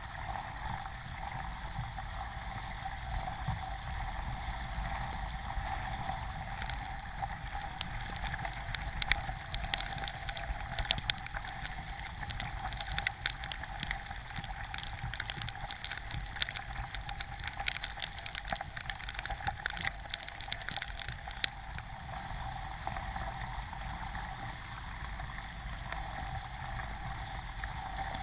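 Water rushing along a K1 racing kayak's hull as it is paddled, with a steady low rumble underneath. Through the middle stretch come many quick splashes and drips from paddle blades.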